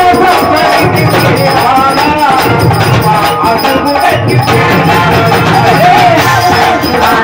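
Live Tamil folk-drama music: a wavering melody over hand drums, with the jingle of a dancer's ankle bells.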